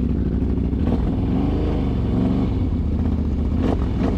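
Can-Am ATV engine running at moderate revs, its pitch rising and falling a little with the throttle, with a knock or clatter about a second in and again near the end.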